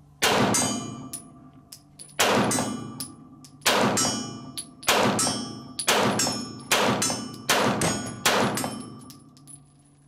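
Eight 9mm pistol shots from a Sig Sauer P210A, each followed by the ringing clang of the bullet striking a steel target. The shots come about a second and a half apart at first and quicken to under a second apart toward the end.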